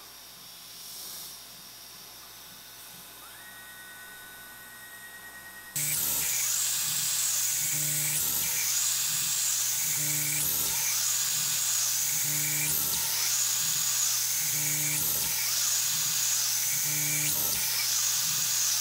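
CNC router spindle whining at high speed while it drills a series of holes into an aluminium tooling plate. The sound repeats in a steady cycle about once a second as the machine plunges and moves from hole to hole. It is quieter at first, and the machining comes in abruptly and much louder about six seconds in.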